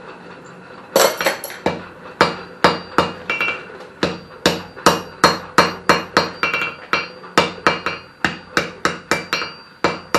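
Hand hammer striking white-hot iron on a steel anvil to set a forge weld: a quick run of blows, about three a second, each with a bright ring from the anvil. The blows begin about a second in, after a steady low rushing sound.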